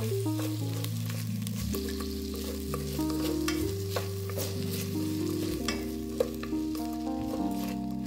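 Food sizzling as it fries in a pan, with small clicks and scrapes of stirring and one sharper tap about six seconds in, under soft background music.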